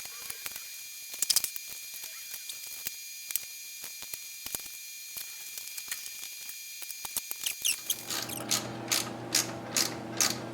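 Hand ratchet wrench clicking as bolts are run in. Scattered clicks at first, then from about three quarters of the way in a steady run of ratcheting strokes about two a second, with a low hum coming in under them.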